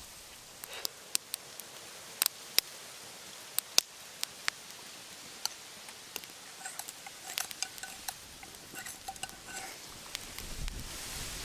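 Wood campfire crackling: sharp single pops and snaps at irregular intervals over a low hiss. In the later middle stretch a faint thin whistle comes and goes.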